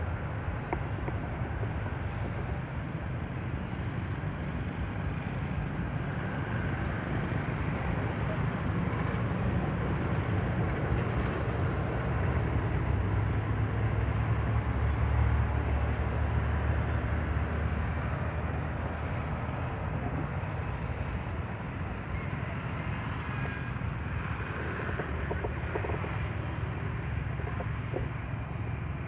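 Steady outdoor background rumble and hiss with no distinct calls, swelling to its loudest about halfway through.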